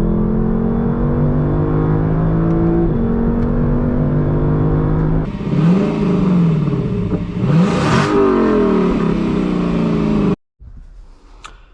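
Lexus LC500's naturally aspirated 5.0-litre V8 accelerating hard, its pitch climbing through the gears with upshifts about 3 and 5 seconds in. The revs then fall and rise twice before the sound cuts off abruptly about ten seconds in.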